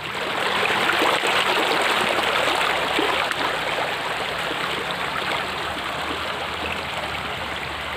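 Shallow stream water running over rocks in a steady rush, getting louder in the first second and then holding.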